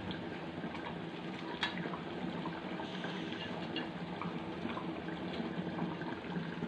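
Watery spiced curry gravy boiling in an iron kadai over a gas flame, a steady bubbling hiss. A few faint clicks and plops come as fried fish pieces are slipped into it.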